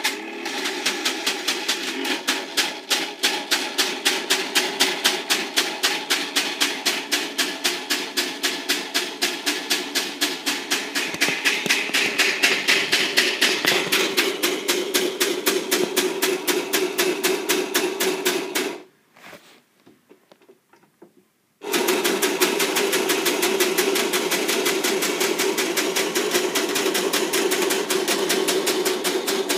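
Battery-powered Technofix 315 Gigant tin toy construction site running: a steady motor hum under rapid, even mechanical clicking. It stops for about three seconds roughly two-thirds of the way through, then starts again.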